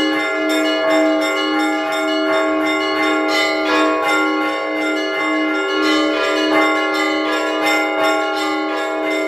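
Russian Orthodox church bells rung by hand from the belfry: quick, rhythmic strikes of the small bells over the sustained ringing of the larger bells, several strokes a second.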